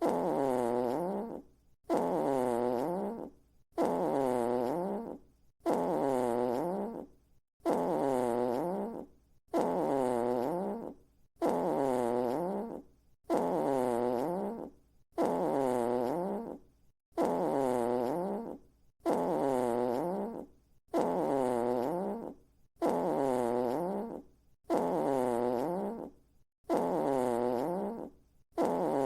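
A fart sound effect played on a loop, the same blat about every two seconds: each is a raspy, pitched blast about a second and a half long whose pitch sags in the middle and comes back up, with short silent gaps between.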